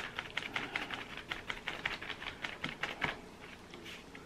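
A paintbrush dabbing and scrubbing paint around on a paper plate, mixing black and orange paint, making quick irregular scratchy ticks that thin out after about three seconds.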